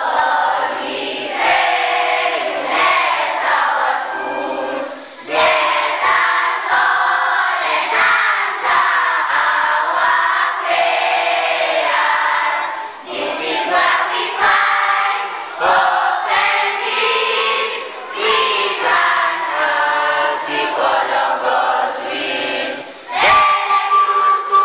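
A choir of schoolchildren singing together.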